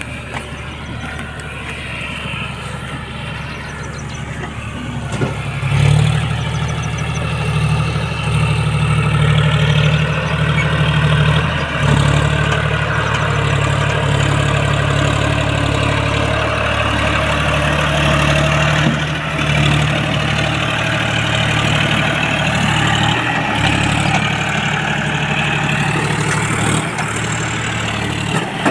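John Deere 5042D tractor's three-cylinder diesel engine running hard under heavy load, hauling a fully loaded trailer with its front wheels lifting. It gets louder about six seconds in and then holds a steady, labouring note.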